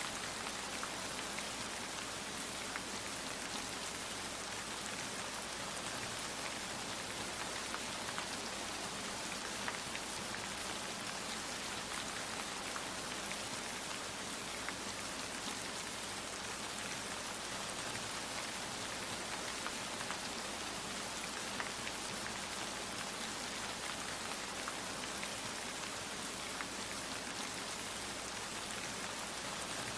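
Steady rain falling: an even hiss with scattered small drop taps.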